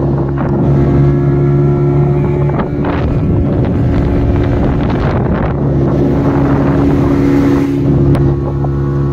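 Small boat's petrol outboard motor running steadily under way at a constant pitch. Wind noise on the microphone swells over it from about three to five and a half seconds in, and again briefly near the end.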